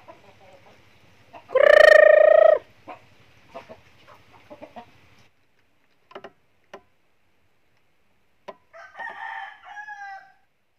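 A rooster crowing once, loud, about a second and a half in, and later a fainter bout of chicken calls near the end. A few light clicks come in between.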